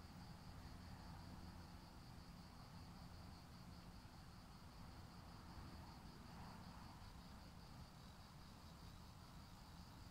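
Near silence with the faint, steady high chirring of crickets over a low background rumble.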